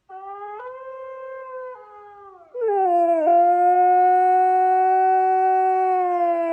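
A dog howling: a quieter, wavering opening, then about two and a half seconds in a loud, long howl held on one pitch that sinks slightly near the end.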